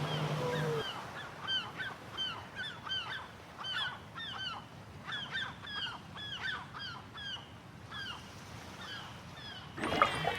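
Many short, overlapping honking calls from a group of animals, each rising then falling in pitch, several a second. Just before the end a louder, denser burst of calls comes in.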